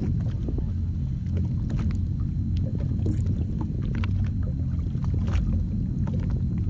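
Steady low rumble aboard a drifting jet ski, with scattered small clicks and ticks from a spinning reel and rod being handled.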